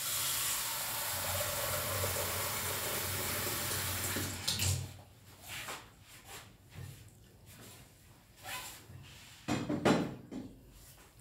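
A steady rushing noise for about four and a half seconds that then stops, followed by a few scattered knocks and handling sounds, the loudest near the end.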